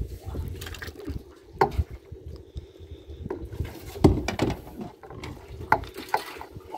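Water sloshing and splashing against the side of a small boat as a landing net is worked in the water, with a few sharp knocks scattered through it.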